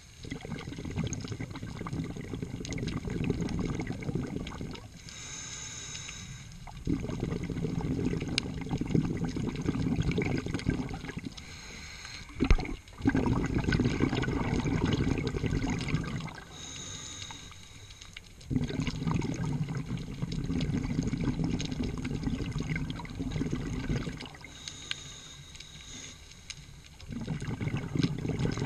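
Scuba diver breathing through a regulator, heard through the camera housing underwater: long bubbling exhales, five in all, alternate with quieter inhales that carry a faint high hiss, about one breath every six seconds.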